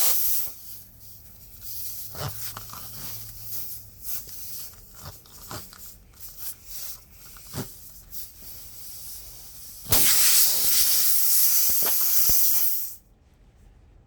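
Air hissing out of a punctured tire through the nail hole, in two loud bursts: a brief one at the start and a steady one of about three seconds near the end. Short clicks and knocks from the plug tools being worked in the hole come in between.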